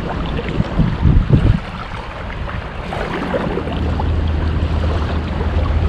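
Wind buffeting the microphone over the wash of shallow water, with a couple of louder low buffets about a second in. A steady low rumble builds through the second half.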